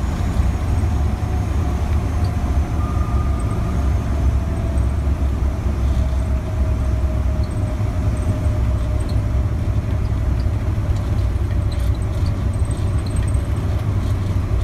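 B-17 Flying Fortress's four Wright R-1820 Cyclone radial engines heard from inside the glazed nose as the bomber rolls down the runway: a loud, steady, deep drone.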